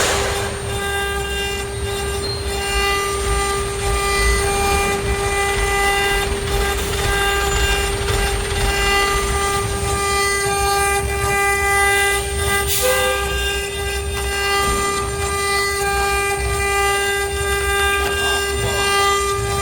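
CNC router spindle running at a steady speed, giving a constant whine with a ladder of overtones over a low rumble.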